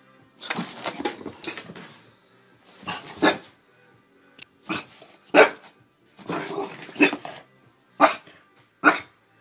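French bulldog barking in a series of about seven short, separate barks with pauses between, the first one drawn out longer.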